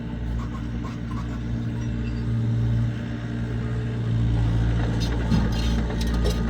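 Heavy construction machine's engine running steadily, rising in level about four seconds in as it is worked harder. Short metallic clinks and rattles come in over it near the end.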